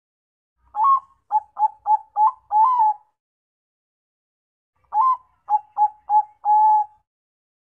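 Zebra dove of the Bangkok perkutut type singing two phrases of its cooing song. Each phrase opens with one note, then comes a quick run of short coos, and it ends on a longer drawn-out coo. The second phrase starts about two seconds after the first one ends.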